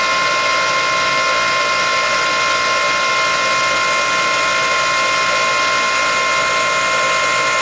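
Water well pump running steadily with a constant whine, building system pressure toward the pressure switch's cut-off point of about 60 psi.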